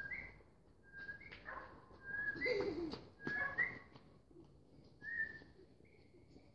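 Short, high whistled notes in pairs, the second note higher than the first, repeated about once a second.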